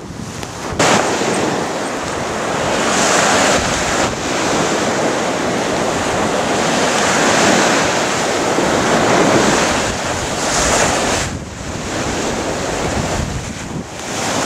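Rough surf breaking on a beach, mixed with strong wind buffeting the microphone; the noise jumps louder about a second in and briefly drops twice near the end.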